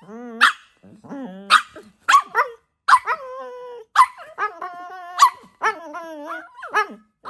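A dog barking in sharp single barks about once a second, with long, wavering whining calls between them.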